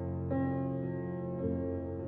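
Background music of slow, sustained chords that change twice.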